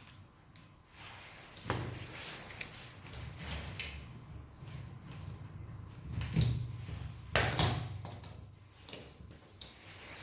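Hand work on engine parts: scattered metallic clicks and knocks of tools and components being handled and fitted, the loudest knock about three-quarters of the way through, over a low steady hum.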